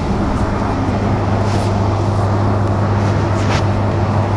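Electric bus under way: a steady low hum over a constant rumble of road noise.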